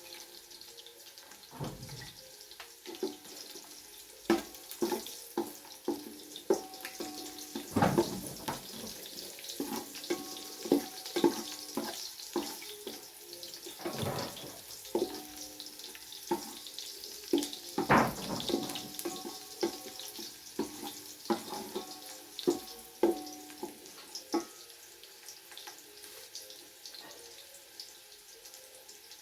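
Water splashing and sloshing in a basin, with repeated knocks and short ringing clinks of metal kitchenware, busiest in the first two thirds and easing off near the end.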